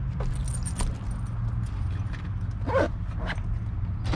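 Rustling and small clicks of a cloth face mask being put on and adjusted, over a steady low rumble. About two-thirds of the way in there is a short wavering yelp-like call, then a second fainter one.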